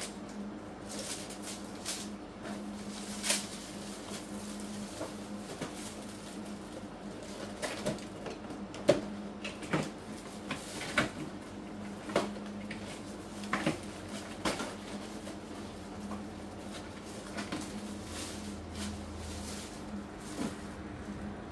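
Cardboard boxes and snack packets being handled and stacked: scattered light knocks, clicks and rustles, over a steady low hum.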